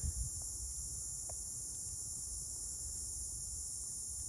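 Steady, high-pitched chorus of insects trilling without a break, with a faint low rumble underneath.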